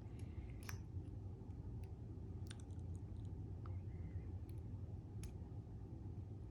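A handful of faint, irregular clicks from a disc detainer pick turning the discs inside a Davidson 70mm disc detainer lock, over a low steady hum.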